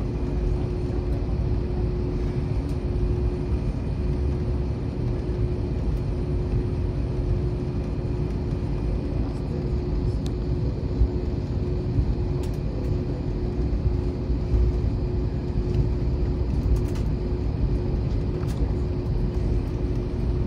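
Airbus A321 cabin noise while the jet rolls on the ground: a steady low rumble from the engines and airframe, with a constant hum over it and a few faint clicks in the second half.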